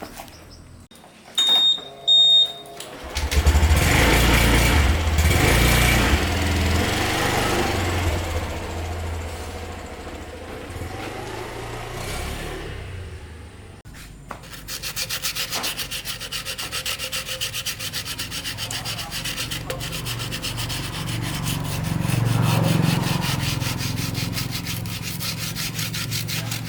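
Two short high beeps, then a loud rushing noise that fades away over about ten seconds; from about halfway, sanding with a fast, even rasping rhythm.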